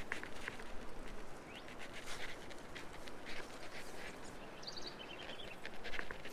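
Wild birds calling: short, high chirps scattered throughout and a quick series of repeated notes about five seconds in, over a steady background hiss.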